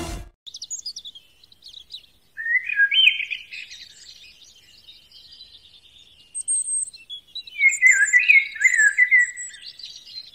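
Songbirds chirping and warbling in short, quick phrases, with some thin high notes. There is a brief lull at about two seconds, and the calls are busiest about eight seconds in.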